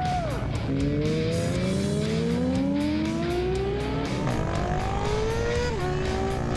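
Sport motorcycle engine accelerating hard, its pitch climbing steadily through a long pull. It drops at an upshift about four seconds in, climbs again, and drops at another upshift near the end.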